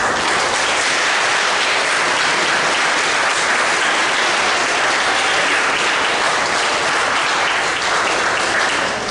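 An audience of students applauding. The applause starts suddenly, holds steady, and fades near the end.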